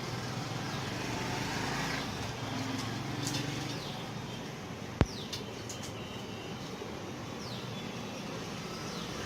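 Steady background traffic noise with a few short, falling bird chirps, and one sharp click about five seconds in.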